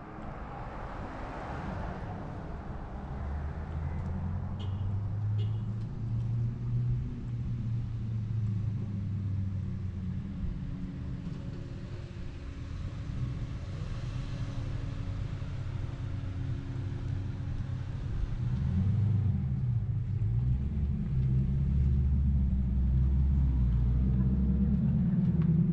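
Car engines running in street traffic, a low engine hum that grows louder over the last several seconds as a vehicle comes close.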